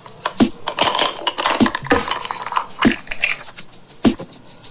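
Plastic nesting eggs being handled and pulled apart: irregular clicks, taps and crinkling, with a few sharper knocks.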